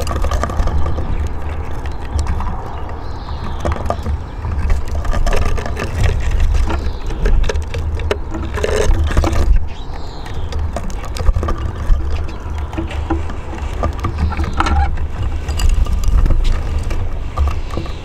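Steady low outdoor rumble, with faint thin descending calls of Eurasian siskins feeding at a bird table every few seconds.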